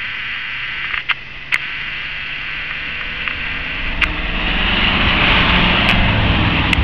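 Ford pickup truck's engine working under load as it ploughs through deep snow, growing louder as it comes close about four seconds in, with a hiss of snow spraying from the wheels. A few sharp clicks are heard along the way.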